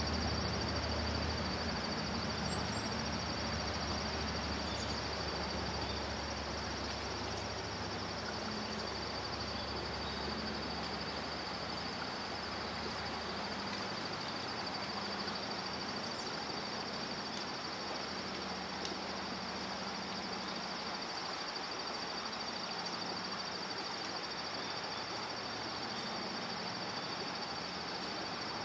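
Insects chirring steadily in a high, unbroken drone over an even outdoor hiss, with a low rumble that fades out about halfway and a few short bird chirps about two seconds in.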